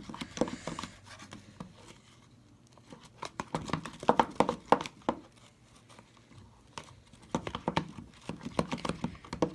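A utensil stirring glue and lotion in a container for slime, making clicking and scraping noises against the container in three bouts with short pauses between.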